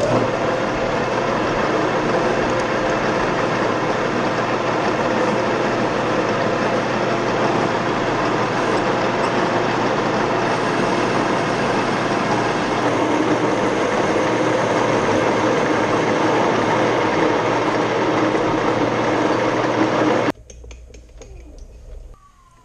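Grizzly G4003 metal lathe running steadily, then shut off about twenty seconds in, its loud running sound stopping suddenly and leaving a weaker low hum for a moment.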